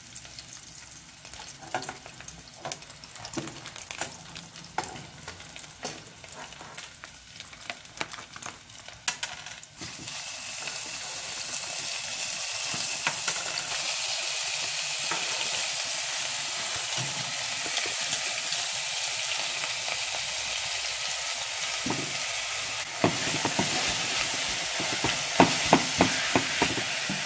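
Beef frying in a hot nonstick saucepan, stirred with a silicone spatula: light scraping and clicks at first, then a loud, steady sizzle from about ten seconds in as more raw beef goes into the pan. Near the end the spatula knocks against the pan several times as the meat is stirred.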